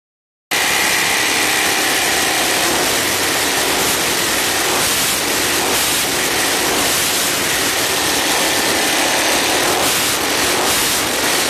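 Suzuki LTZ400 quad's single-cylinder engine running steadily with a rattle, the noise the owner is showing.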